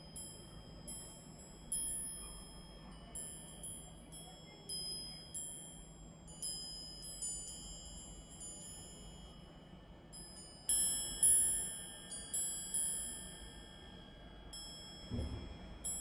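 Myochin fire-chopstick wind chime, its forged iron rods struck again and again at irregular intervals, each strike ringing in high, clear tones that fade slowly. There is a busier flurry of strikes about two-thirds of the way through, and a brief low thump near the end.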